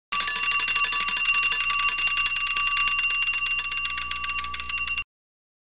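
Mechanical twin-bell alarm clock ringing: its hammer strikes rapidly back and forth between the two metal bells in a continuous high clatter, then the ringing cuts off suddenly about five seconds in.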